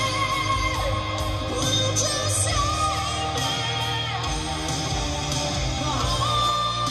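Rock ballad playing through a two-way car audio system: a male singer holds long high notes over electric guitar and drums.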